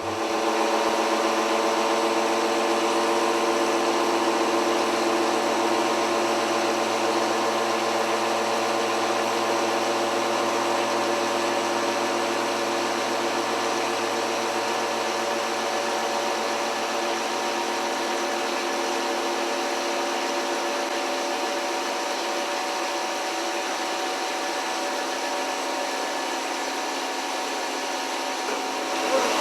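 CNC gear hobbing machine running steadily: a constant machine whine of several steady tones over an even hiss.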